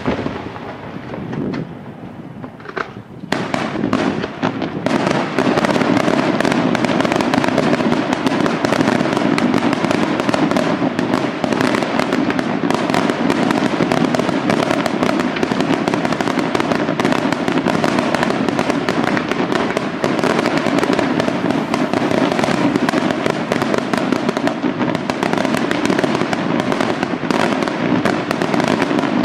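Fireworks: an aerial shell bursts with a loud bang and a few scattered cracks follow. From about three seconds in, it builds into a dense, unbroken barrage of rapid bangs and crackle from fireworks firing low over the ground.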